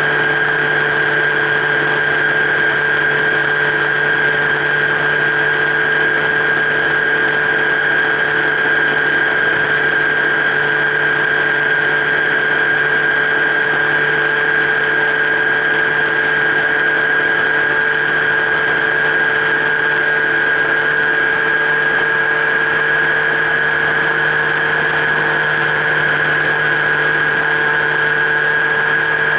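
Motorcycle engine running at a steady highway cruise, heard through a camera bolted to the bike's frame. It gives a constant high whine over a lower hum and a hiss of wind and road.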